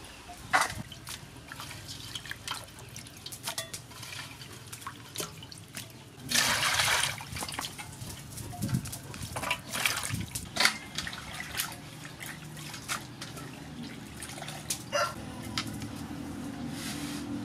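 Raw chicken feet being washed by hand in a metal basin of water: splashing and dripping as they are lifted out, with short clicks as they drop into a steel colander. A louder rush of water, about a second long, comes about six seconds in.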